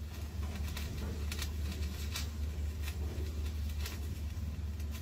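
A steady low hum, with a few scattered sharp clicks or taps over it.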